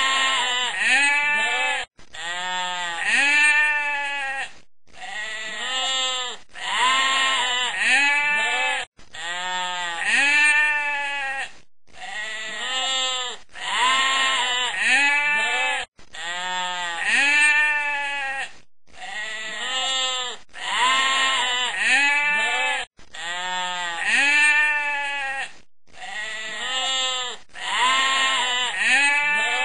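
A looped background track of wavering, pitched tones, repeating the same pattern with a short break about every seven seconds.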